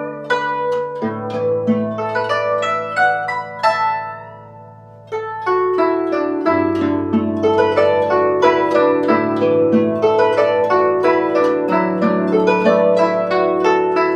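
Guzheng playing a flowing melody of quick plucked notes over ringing low notes. The playing thins out and fades about four seconds in, then comes back fuller a second later.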